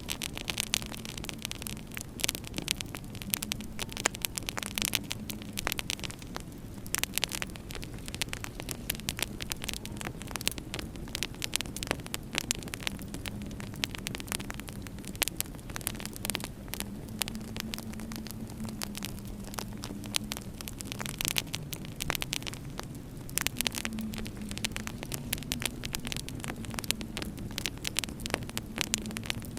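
Wood fire crackling in a fireplace with frequent sharp pops, over a low, wavering howl of winter wind.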